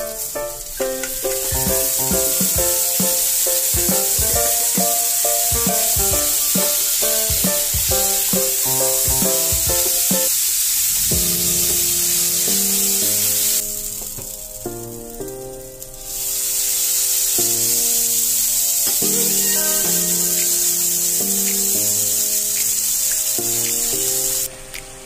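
Rice and fried shallots sizzling in oil in a nonstick frying pan as a spatula stirs them. The sizzle breaks off for about two seconds a little past halfway, then starts again. Background music plays throughout.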